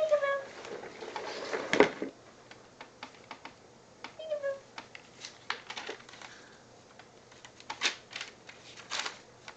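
Paper pages crinkling and tearing in quick, irregular rustles as they are grabbed and waved about. There are two brief baby vocal sounds, one at the start and one about four seconds in.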